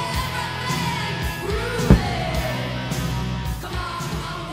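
Music with singing over a steady beat, with one sharp bang about two seconds in.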